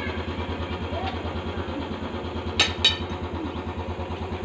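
An engine idling steadily with an even low putter. Two sharp clicks close together a little past halfway.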